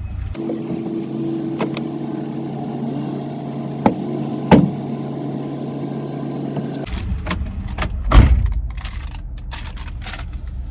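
A steady hum with several sharp clicks and knocks, then a heavier thump about eight seconds in, as someone rummages for napkins.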